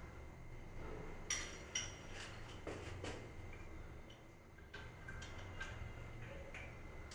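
Scattered light clicks and clinks of hard plumbing fittings being handled and fitted together, about eight in all, over a low steady hum.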